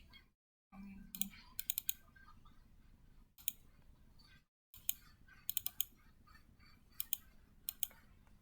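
Clicking of a computer mouse and keyboard keys: scattered single clicks and several quick runs of three or four clicks.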